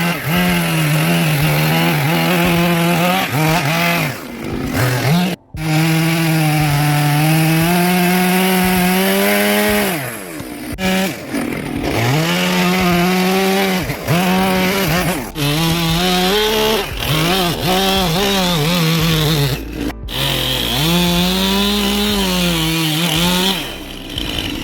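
Two-stroke chainsaw running at high revs while carving wood. Its pitch sags under load and recovers over and over, with several short drops in revs as the bar is eased off and put back into the cut.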